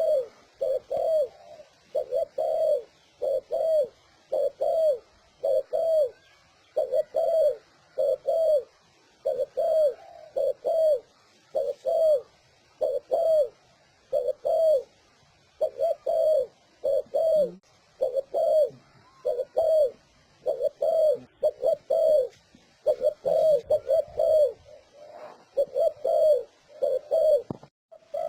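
Spotted dove cooing without pause: a long run of low coos, one after another about once a second, in the fast-paced "speed" cooing style.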